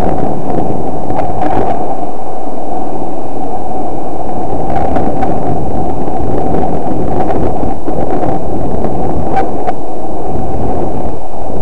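Wind rushing over a small action camera's microphone during a snowboard descent: loud, steady buffeting noise with no break.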